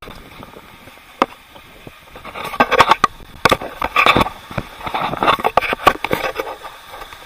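Handling noise from a camera held in the hand on horseback: irregular knocks, scrapes and rubbing against the microphone. It comes as one knock about a second in, then a dense run of clatter from about two and a half to six and a half seconds in.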